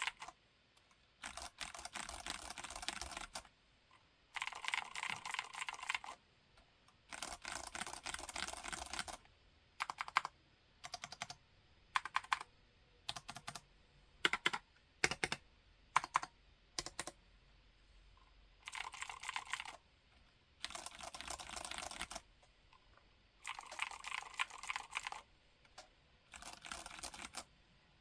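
Typing on a Vortex keyboard for a sound test: quick runs of keystrokes lasting a second or two, broken by short pauses. In the middle come a dozen or so separate single key presses.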